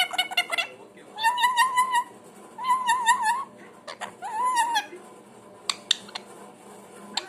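Pet parrot calling: a quick stuttering burst, then three separate wavering, whistle-like calls about a second apart, followed by a couple of sharp clicks.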